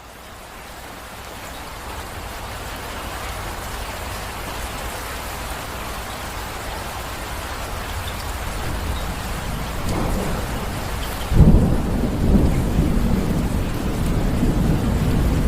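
Steady rain fading in and growing louder, then a sudden loud thunderclap about eleven seconds in, followed by rolling thunder under the rain.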